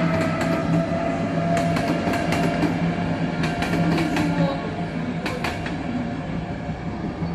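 Locomotive-hauled passenger train passing, with a steady low hum and wheels clicking over rail joints in quick pairs as the coaches go by. The sound slowly fades as the train draws away.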